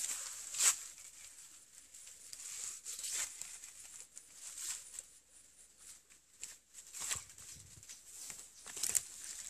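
Irregular rustling and crackling of dry leaves and dead stalks, with footsteps on the forest floor, as someone pushes through undergrowth.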